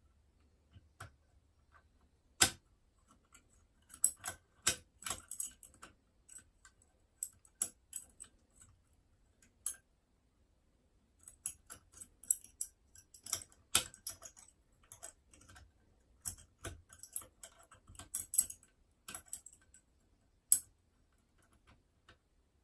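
Small metallic clicks and scrapes of picking tools working the levers of a Union Chubb 3G110 five-lever mortice lock, with tension held on the bolt. The clicks come irregularly, in scattered clusters, with a few sharper single ticks standing out.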